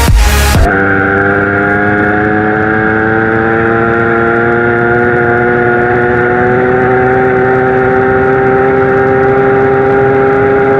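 Dance music cuts off less than a second in, giving way to a Zanella 70cc two-stroke moped engine running under way, its pitch climbing slowly and steadily as it pulls.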